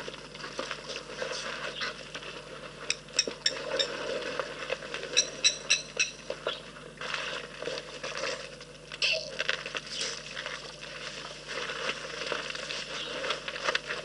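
African elephants drinking at a waterhole: trunks dipping, splashing and dripping, with patter and crackle of water throughout and quick runs of sharp ticks around three and five seconds in.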